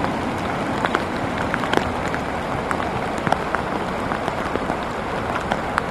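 Steady rain, with many scattered sharp drops hitting close by.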